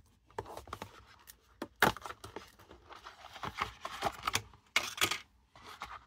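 Hands handling a cardboard box and prying a folding pocket knife out of its foam insert: a string of light scrapes, rustles and clicks, the sharpest about two seconds in.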